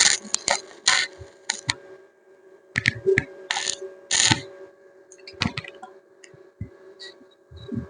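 Irregular mechanical clicking with short rasping strokes every second or so, over a steady low hum.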